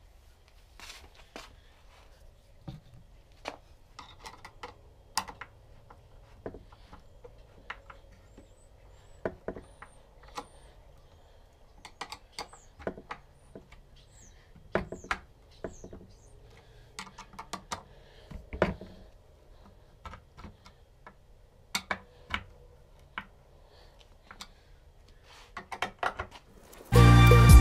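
Scattered light clicks and knocks from wooden frame pieces and a tape measure being handled, over a faint steady hum. Music begins near the end.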